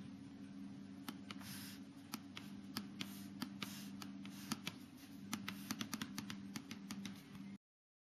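Trackpad button of a late 2008 aluminium unibody MacBook Pro clicked over and over in quick, irregular succession, with brief rubbing sounds and a faint steady hum underneath. The sound cuts off shortly before the end.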